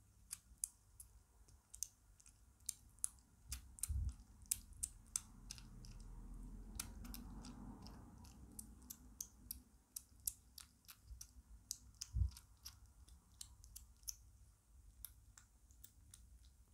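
Kitten chewing and smacking on soft wet food from a plate: quick, irregular little wet clicks, a few each second. A low thump sounds about four seconds in and a louder one about twelve seconds in.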